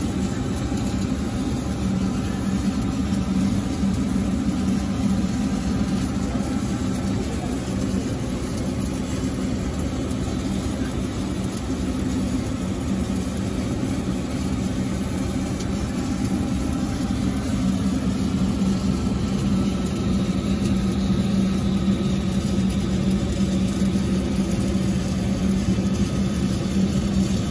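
A steady mechanical drone like an engine idling, with a low hum held at one pitch, unchanging throughout.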